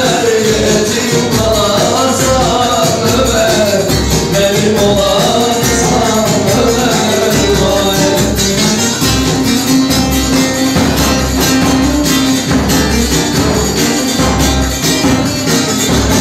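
Live Turkish folk music: a davul drum beats a steady rhythm under a plucked long-necked lute and a melody line.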